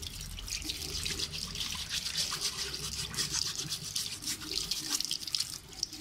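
Tap water running and splashing over a plastic dishwasher drain filter while it is scrubbed with an old toothbrush, an irregular scratchy brushing over the splashing water.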